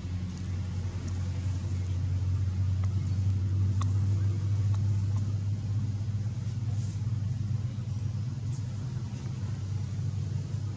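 A motor vehicle's engine running steadily: a low hum that grows a little louder around the middle.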